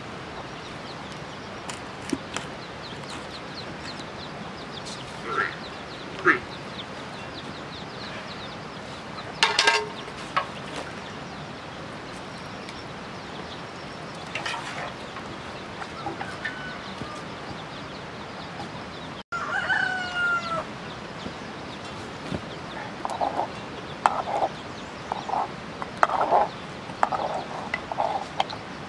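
Chickens clucking and calling in short, scattered bursts, with a rooster crowing briefly about two-thirds of the way through. The clucks come thick and fast in the last few seconds.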